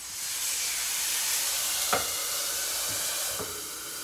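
Water poured into a hot frying pan of arepas hisses and sizzles into steam, starting suddenly and easing a little near the end. A sharp knock about two seconds in and two fainter ones later, utensil or dish against the pan.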